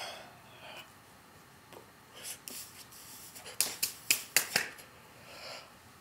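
A person's sharp snapping sounds, a quick run of about five in a second about halfway through, with soft breathy puffs before and after.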